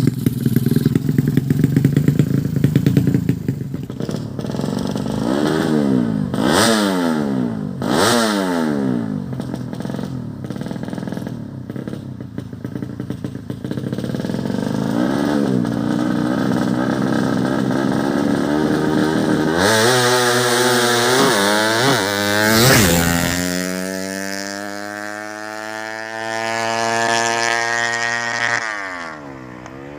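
Tuned 130cc drag-bike engine idling, then blipped through several quick revs. Near the end it is held at a long rev climbing in pitch that cuts off suddenly.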